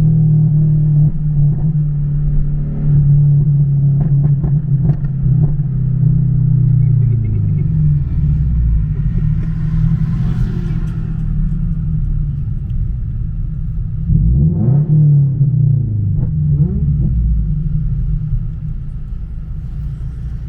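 Scion FR-S engine and tuned exhaust running with a steady low drone. The engine note drops around seven seconds in, then rises quickly and falls again about two-thirds of the way through.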